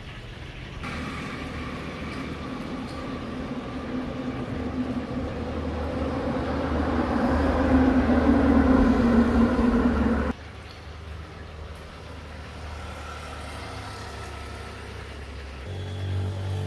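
Road traffic: a motor vehicle's engine and tyre noise growing steadily louder for several seconds, then cut off suddenly about ten seconds in, leaving a quieter steady hum.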